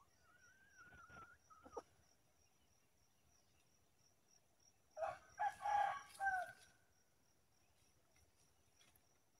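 Red junglefowl roosters calling: a faint drawn-out note and a short falling note in the first two seconds, then a louder run of about four short calls about five seconds in, lasting under two seconds.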